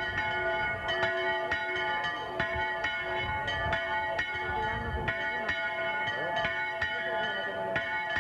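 Bells pealing with quick, irregular strokes, about three or four a second, each leaving a lingering ring, with faint crowd voices underneath.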